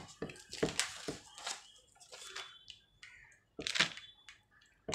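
A stirring rod tapping and scraping against a glass beaker while castor oil is mixed with sulfuric acid to make Turkey red oil. The taps are irregular, with a louder cluster near the end.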